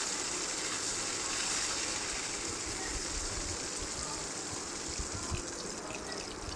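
Bhetki fish steaks sizzling steadily as they shallow-fry in hot mustard oil in a stainless steel kadai, freshly turned with one side already fried. The hiss eases a little near the end.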